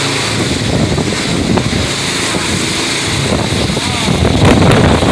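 Strong wind buffeting the microphone, a steady heavy rumble with gusts.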